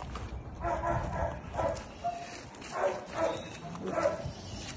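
A dog giving a run of short, pitched yips and whines, several in quick succession, as two dogs greet and circle each other.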